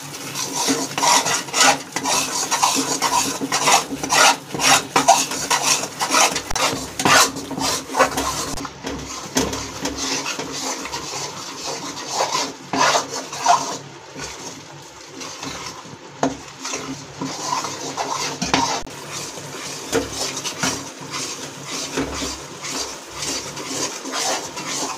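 Steel spatula stirring and scraping through thick besan roasting in ghee in a steel pan, in quick repeated strokes against the metal. The strokes are dense and loud for the first several seconds, then sparser and quieter.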